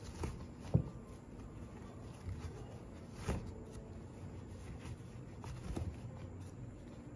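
Quiet handling sounds of hands weaving t-shirt fabric strips into a rag rug on a frame: faint rustling with a few soft knocks, the clearest about a second in and near the middle.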